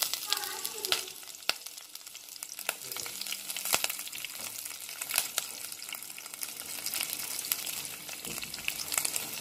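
Green chillies, chopped ginger, curry leaves, mustard seeds and urad dal sizzling in hot oil in a steel pan during the tempering stage, a steady hiss dotted with frequent sharp crackles.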